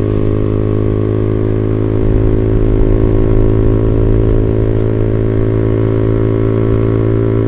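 Motorcycle engine through a WRX GP5 aftermarket exhaust (25 cm muffler, half baffle), holding a steady engine speed with an even, bassy note. The bass comes from a camshaft with higher lift and duration.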